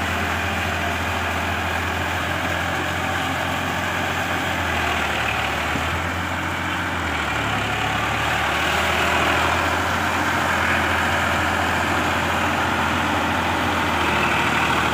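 Massey Ferguson 7250 DI tractor's three-cylinder diesel engine running steadily under load as it drives a rotavator through a muddy paddy field, with the churning of the tiller mixed in. The engine note shifts slightly a couple of times.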